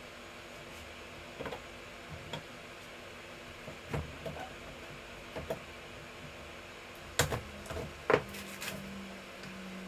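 Scattered knocks and clicks of wooden parts and tools being handled on a bench, the loudest two about seven and eight seconds in. A steady low hum starts just after them.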